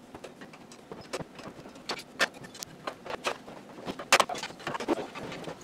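Chrome trim being handled and pressed into the enamelled steel backsplash of a vintage Universal gas stove: irregular small metallic clicks, taps and scrapes, the loudest a sharp click about four seconds in.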